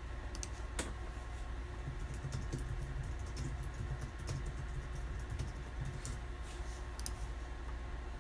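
Typing on a computer keyboard: scattered, irregular key clicks over a low steady hum.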